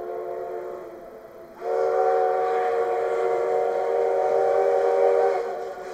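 Steam whistle of the C10 8 steam tank locomotive: a shorter, softer blast, then a louder long blast of about four seconds that stops near the end.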